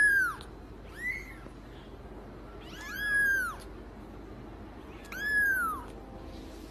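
Young kitten meowing four times, high calls that rise and then fall in pitch; the second one is short.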